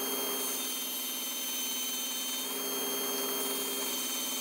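Table saw running steadily while ripping a straight cut in a reclaimed hardwood board.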